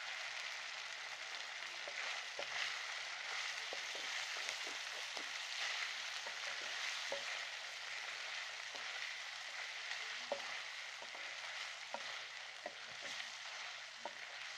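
Creamy chicken karahi sizzling steadily in the pan as it is fried down (bhuna) until dry, with occasional light clicks.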